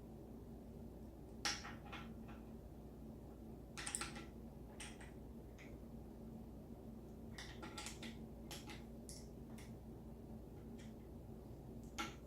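Small plastic plumbing fittings being handled and fitted, giving scattered sharp clicks and taps, a cluster of them near the middle, over a faint steady hum.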